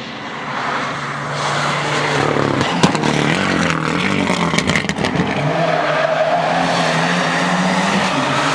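Rally car coming through the stage at speed, its engine growing louder. About three to five seconds in, the engine note changes through gear shifts and lifts, with a run of sharp cracks. It then holds a steady high-revving note.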